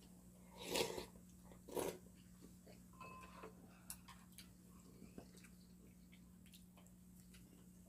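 Two loud slurps of soup from a spoon, about a second apart, then quiet chewing with small clicks of a spoon and chopsticks on porcelain bowls. A steady low hum runs underneath.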